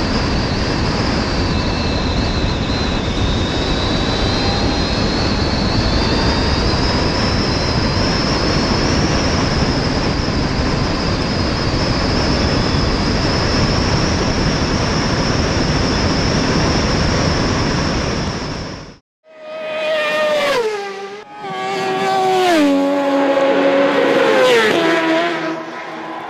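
Sarolea electric racing motorcycle at full speed, with heavy wind rush over the onboard microphone and a steady high-pitched electric motor whine that sags a little and then climbs back. It cuts off abruptly about 19 seconds in, followed by a logo sting of whooshes and tones stepping downward in pitch.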